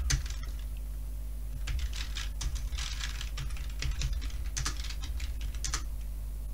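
Computer keyboard typing in quick runs of keystrokes, with a pause of about a second near the start.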